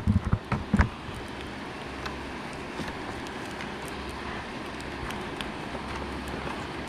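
A few sharp knocks as gloved hands handle a rope and a plastic bucket, then steady wind rumbling on the microphone.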